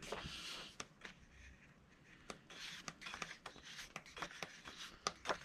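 Sheets of paper being handled and laid down: faint rustling with scattered soft taps and ticks, picking up from a little past two seconds in.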